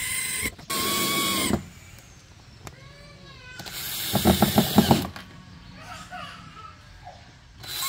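A small electric motor, such as a hand drill, whirring with a steady whine in short runs: twice at the start and again near the end. In between there is a brief sliding pitch, then a louder rattling, pulsing stretch about four to five seconds in.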